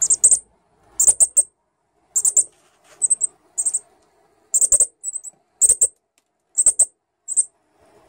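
Fledgling northern cardinals giving sharp, high-pitched chip calls in quick clusters of two to four, repeated about once a second.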